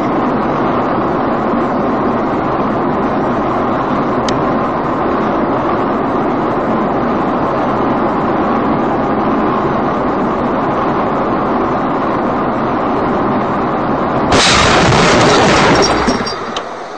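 Steady road and engine noise inside a moving car, picked up by a dashcam. About fourteen seconds in, a sudden loud crash of a collision cuts in, lasts a second or two, then fades.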